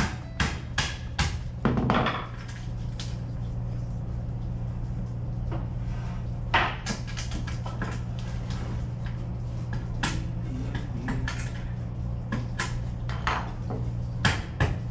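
Wooden boards and offcuts being handled, knocked together and set down on a deck: scattered sharp clacks and knocks over a steady low hum.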